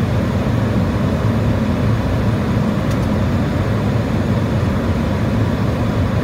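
Steady rumble of airflow and engines heard inside a Boeing 737 flight deck on final approach, deep and even throughout.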